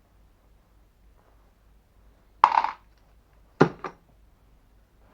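Sharp metallic clinks of small microwave parts being dropped or set down on a hard surface during disassembly: one ringing clink about two and a half seconds in, then two quick knocks about a second later.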